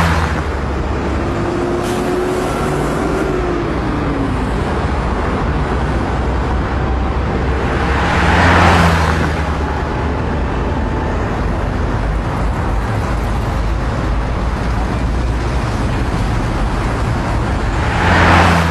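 Steady rumbling, hissing noise that swells three times, at the start, about halfway through and at the end, in the manner of road traffic passing.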